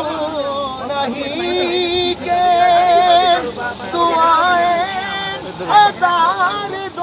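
A single voice singing an Urdu naat unaccompanied, in long held notes with wavering, ornamented pitch and short breaks between phrases.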